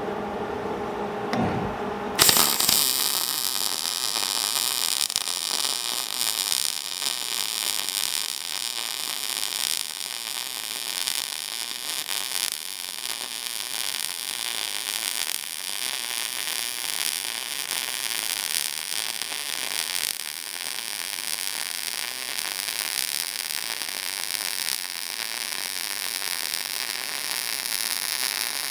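Electric arc welding: the arc strikes about two seconds in and then crackles and hisses steadily as a weld bead is run on a steel gate hinge. The ground clamp has been moved off a painted tabletop onto a better connection, and the arc now burns without trying to cut out.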